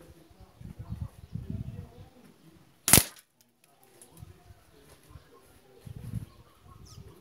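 A single sharp crack about three seconds in: a 4.5 mm air rifle pellet striking and knocking away a small glass medicine vial. Low rumbling comes and goes before and after it.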